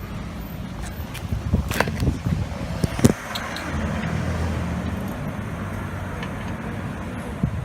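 A car engine running steadily with a low hum, with a few sharp knocks in the first half.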